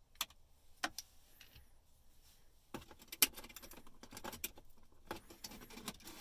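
Light clicks and rattles of hard plastic dash trim being handled as cut-out pieces are lifted out of the radio opening. There are a couple of sharp clicks in the first second, the loudest click a little past three seconds, and a denser clatter after that.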